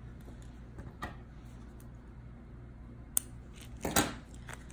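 A few light handling clicks, then a sharp click about three seconds in and a short, louder snip about four seconds in. This is small embroidery scissors trimming the yarn tail and being put down on a wooden table.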